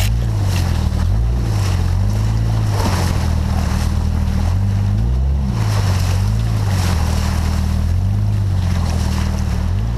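A 4x4's engine running at low speed, its pitch rising and falling every second or two with the throttle, as it drives up a shallow rocky creek. Water splashes around the tyres and wind rushes over the microphone.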